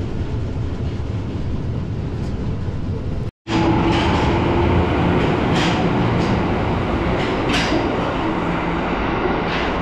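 Tokyo Metro Marunouchi Line train: a steady rumble of the car running, then, after a sudden cut about three seconds in, the red train running past the platform and pulling away, with a steady motor hum and a few clacks about two seconds apart.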